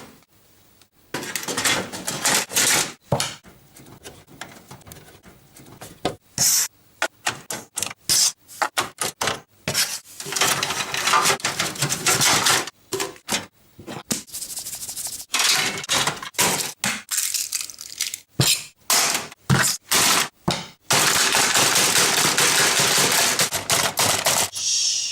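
A rapid, irregular series of cracks, bangs and scrapes as hard objects are smashed and broken. Near the end there is a few seconds of steady, noisy scraping.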